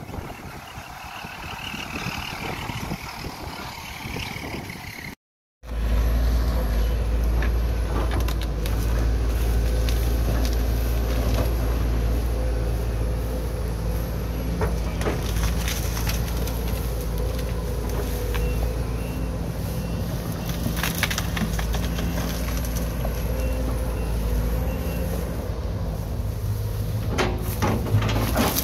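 A heavy machine's diesel engine runs steadily while wood cracks and splinters, with the cracking getting louder and more frequent near the end. A different, noisier outdoor sound fills the first few seconds, before a short break.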